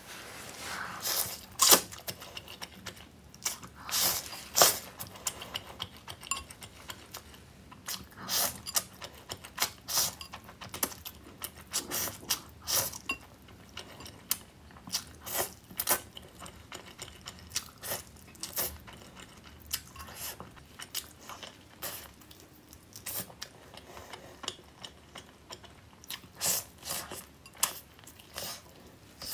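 Close-miked eating: slurping spicy noodles and chewing squid in thick sauce, with wet mouth smacks and sharp clicks at irregular intervals.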